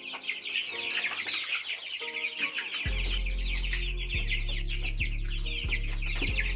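A crowd of young broiler chicks peeping without a break, a dense chorus of short, high, falling cheeps.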